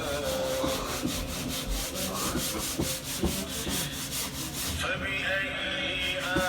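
Sanding by hand: quick, even rubbing strokes, about five a second.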